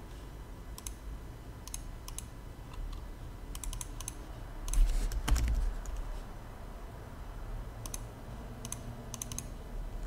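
Computer keyboard being typed on in short, scattered bunches of keystrokes, with a louder, duller bump about halfway through.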